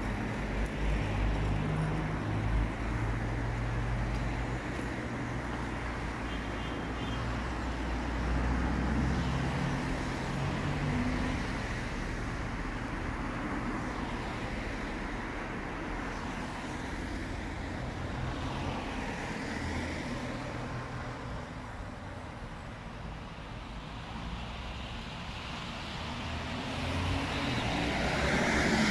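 Outdoor street noise: road traffic passing, a steady rumble that grows louder near the end.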